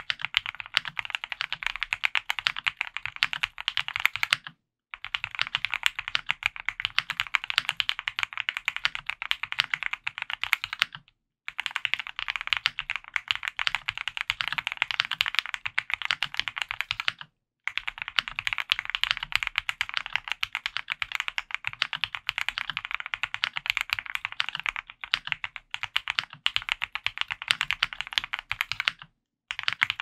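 Continuous fast typing on a custom mechanical keyboard with Gateron Ink Black v2 linear switches, lubed with Krytox 205g0, in a polycarbonate plate with PBT keycaps: a dense stream of keystrokes. It stops dead for about half a second four times.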